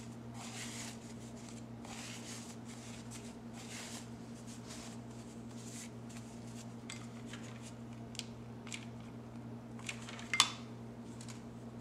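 Soft rustling of artificial fabric rose petals being handled and fluffed by hand, then a few light clicks and one sharper click near the end. A steady low hum runs underneath.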